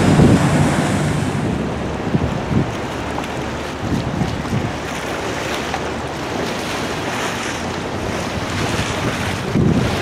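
Gusty wind buffeting the microphone over the steady rush of fast-moving river water, heaviest in the first second or two and then settling.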